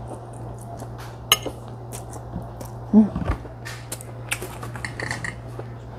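A metal fork clinking and scraping in a glass food container during eating, in scattered short clicks, with a louder knock about three seconds in. A steady low hum runs underneath.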